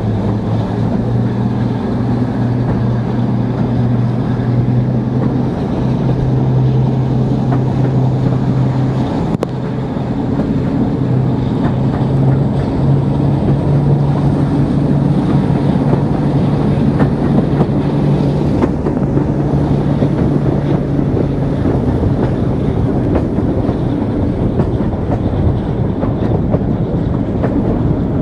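Twin Maybach diesel engines of a Class 42 'Warship' diesel-hydraulic locomotive working the train, a steady engine drone over carriage wheel noise and wind, heard from an open carriage window behind the locomotive. The engine note fades away about three-quarters of the way through, leaving wheel and wind noise.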